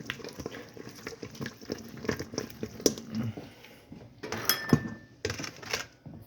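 Kitchen handling clatter: a run of knocks, clicks and rustles from utensils and dishes, with two louder noisy patches near the end.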